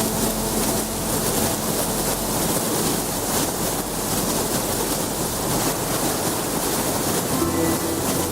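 Steady, loud rush of falling water. Soft music begins to come in near the end.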